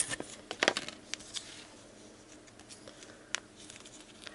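Small plastic sachet being handled and opened: light crinkling with a few sharp clicks in the first second and a half and one more a little after three seconds.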